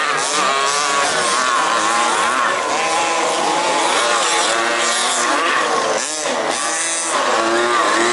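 Several 1/5-scale two-stroke petrol RC off-road cars racing together, their small engines revving up and down in overlapping, wavering whines as they lap the track.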